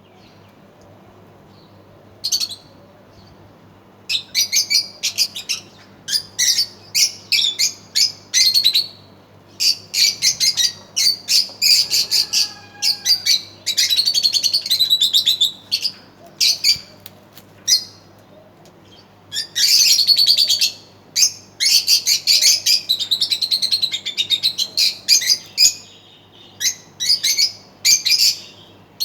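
Pet lovebirds chattering: runs of rapid, high-pitched chirps and squawks with short pauses between them. The calls begin in earnest about four seconds in, after a single chirp.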